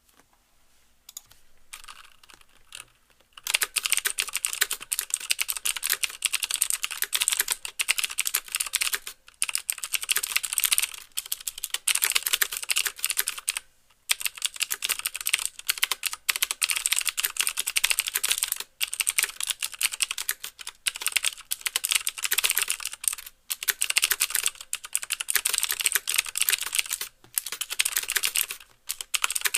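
Fast typing on a mechanical keyboard with clicky Cherry MX Blue switches: a dense run of crisp clicks with the keys bottoming out, click and clack together. It begins with a few scattered keystrokes and settles into steady typing after about three seconds, with short pauses between bursts.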